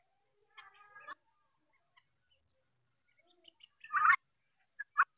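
Helmeted guineafowl calling: a harsh chattering call about half a second in, a louder harsh call about four seconds in, and two short sharp calls near the end.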